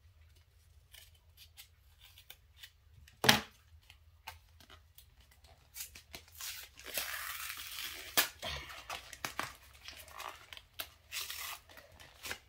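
Pokémon card packaging being opened and handled: a sharp knock about three seconds in, then a longer tearing rustle of foil and plastic wrapping, followed by lighter rustles and taps.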